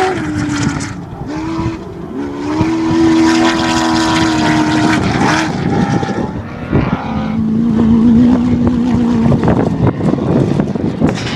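Off-road race vehicle engines running hard. The engine note holds steady for a few seconds at a time and steps down and up in pitch several times, with a lower, steady note a little past halfway.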